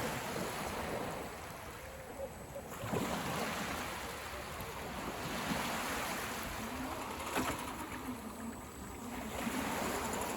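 Sea waves washing onto the beach: a rush of surf that swells and fades several times.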